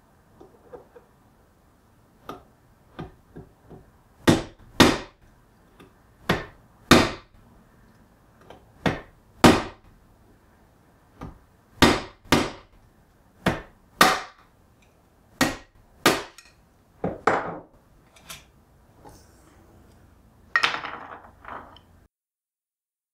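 Claw hammer blows on the handle of a screwdriver set against the push-button Simplex combination lock of a steel pistol box: about two dozen sharp strikes, some hard and some light, at irregular intervals, a forced-entry attempt to knock the lock through its unreinforced combination chamber. Near the end comes a short burst of clattering.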